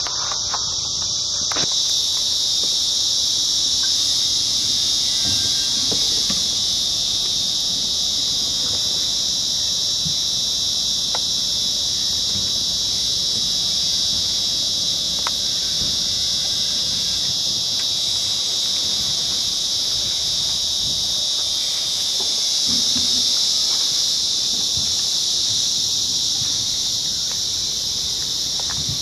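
Insect chorus in the trees: a loud, steady, high-pitched drone that never breaks.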